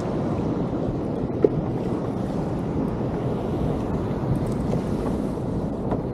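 Wind buffeting the microphone over a choppy sea, a steady rushing noise mixed with waves, with one brief knock about a second and a half in.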